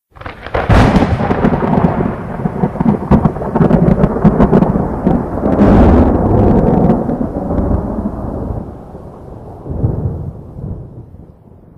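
Thunder: it starts suddenly with sharp crackling, then a long rumble, which swells once more about ten seconds in before fading away.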